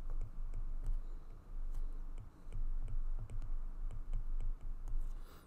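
Stylus clicking and tapping on a tablet screen during handwriting: a run of light, irregular clicks over soft low thuds.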